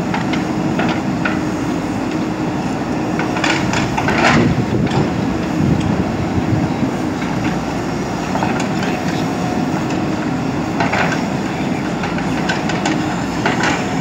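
JCB 3DX backhoe loader's diesel engine running steadily under hydraulic load as the backhoe arm digs soil. Sharp metallic clanks from the bucket and arm linkage come a few times.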